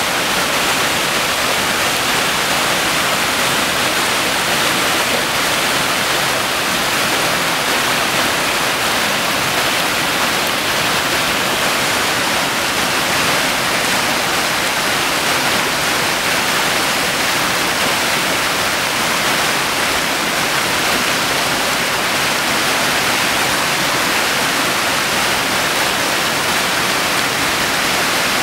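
A rocky creek and small waterfall running steadily: an even, unbroken wash of water noise with no separate splashes standing out.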